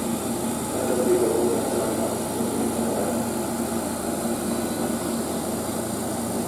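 Keihan electric commuter trains, one a 2200-series, pulling out along the station tracks: a steady running rumble of wheels and traction motors with a low hum.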